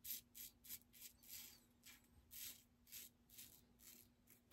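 Faint, short rasping strokes of a safety razor cutting lathered stubble, about three a second at first and then sparser.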